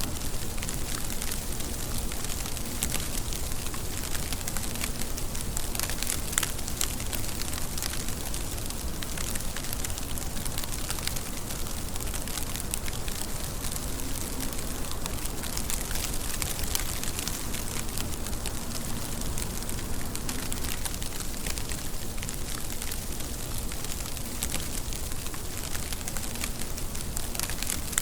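Steady rain, a dense, even patter of many drops that never lets up.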